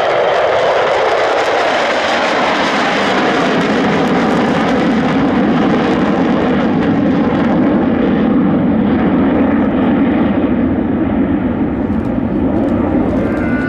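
Jet noise from four F-16 fighters and their Pratt & Whitney F100 turbofans as the formation passes overhead: a loud, steady rush whose pitch drops about two seconds in, then slowly loses its treble as the jets fly away.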